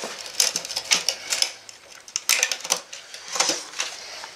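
Irregular clicks and light rattles of plastic and metal parts being handled inside a stripped-down laser printer chassis, as its wire harness and a plastic assembly by the motor are tugged at, coming in a few short clusters.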